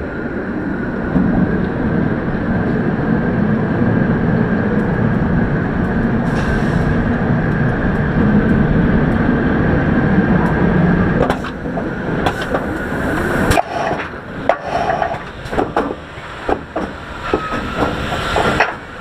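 Bolliger & Mabillard floorless roller coaster train rolling along its steel track through the final brake run, a steady rumble with a faint whine from the wheels. About two-thirds of the way in the rumble drops away as the train slows into the station, and a series of knocks and clanks follows as it runs over the drive tires.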